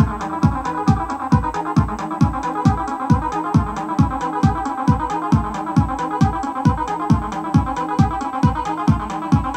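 Roland TB-03 bass line synthesizer playing a looping acid bass pattern over a steady kick drum beat of about two kicks a second, with its filter being swept as the knobs are turned.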